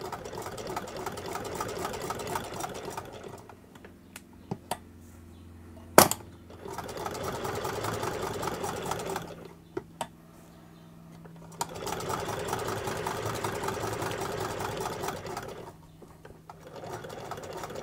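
Hand-cranked Jones Family CS sewing machine stitching in four runs of a few seconds each, a fast even rhythm with short pauses between. There is a single sharp click about six seconds in and a few small clicks in the pauses. The machine is freshly serviced and sewing well.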